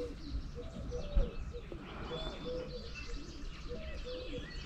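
Birds calling: a steady series of short, low calls repeating every half second or so, with scattered higher chirps above them.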